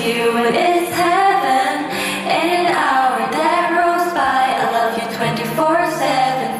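A woman's voice singing a slow pop melody over a backing track with a steady low bass note.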